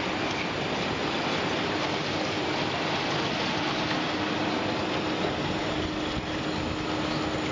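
Steady running noise of an automatic stainless steel chicken-feet peeling line, its mesh conveyor and peeling rollers turning, with a steady low motor hum under it.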